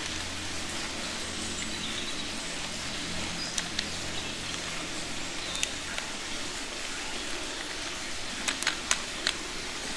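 Hard plastic toy-vehicle parts clicking and tapping together as a loader bucket is fitted onto a toy excavator's arm by hand: a few scattered sharp clicks, with a quick run of four near the end, over a steady hiss.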